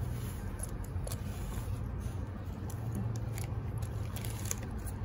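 Hands handling a leather sling bag and clipping on its metal snap-hook strap: scattered small clicks and rubbing over a steady low hum.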